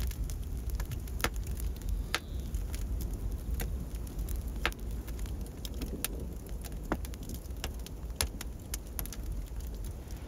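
Straw and dry twigs burning fast on a metal sheet over a wood fire: a steady low rush of flames with irregular sharp crackles and pops.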